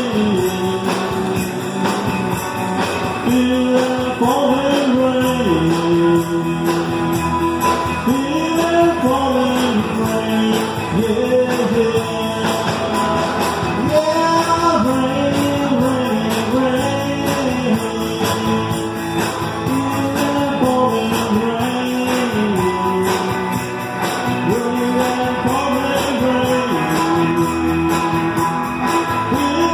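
A live band playing worship music: electric guitars and a drum kit keeping a steady beat, with a man singing the melody at the microphone, all heard through the PA.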